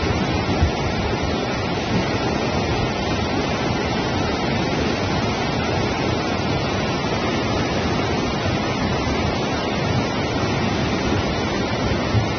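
A swollen, muddy river in flood rushing steadily, a continuous roar of fast-moving floodwater.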